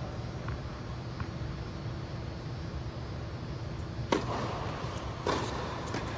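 Two sharp tennis ball hits a little over a second apart in the second half, echoing in a large indoor hall, over a steady low hum.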